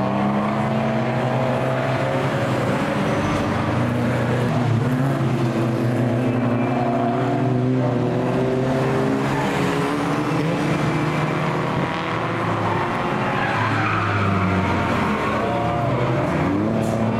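Racing car engines running hard and passing at speed, the pitch rising and falling as they go through a corner. In the last few seconds a small hatchback race car spins, its tyres skidding and squealing.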